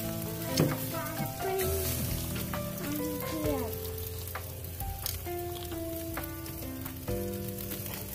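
Chicken pieces sizzling on a grill grate, with a few sharp clicks of metal tongs against the grate. Background music with sustained notes plays alongside.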